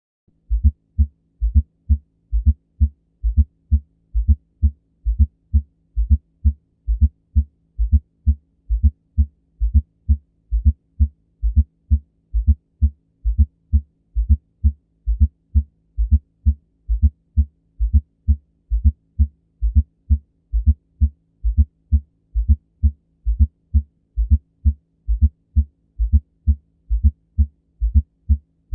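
Heart sounds with an S4 atrial gallop: an extra low thud late in diastole, just before the first heart sound, repeating in steady low beats about once a second.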